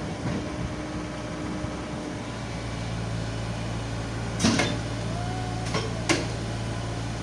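Diesel engine of heavy machinery running steadily, its low drone strengthening about two seconds in. Several sharp clanks in the second half.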